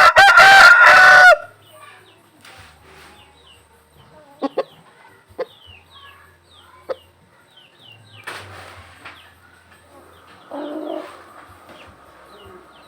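A rooster crows once at the start, one loud crow lasting about a second; the rooster is one the owner says is fully cured of ngorok, the snoring respiratory illness of chickens. After it come only faint high chirps and a few soft clicks.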